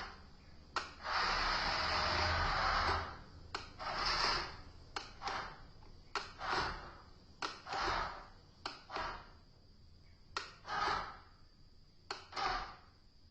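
Remote-control toy excavator's small electric motors whirring in short stop-start bursts, with sharp plastic clicks and knocks in between. The longest burst is about a second in.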